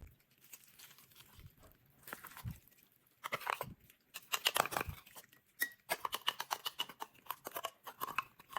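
A spoon scooping wet canned cat food out of a tin, in irregular soft scrapes and clicks that start about two seconds in.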